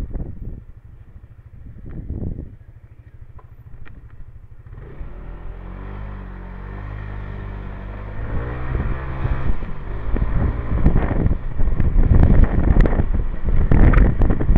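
Motorbike engine running low and quiet, then pulling away from about five seconds in with a rising note that steps up once around eight seconds. As speed builds, wind buffets the microphone, growing loud and gusty near the end.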